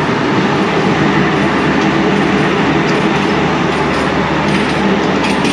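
Coaches of a departing passenger express (Pakistan Railways 6DN Green Line) rolling past close by: a steady, loud noise of wheels running on the rails.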